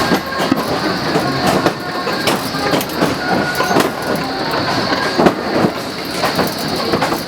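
Car of the Blue Mountains Scenic Railway, a steep incline railway, running along its track with continuous rattling and clacking, irregular clicks and knocks, and a steady high whine.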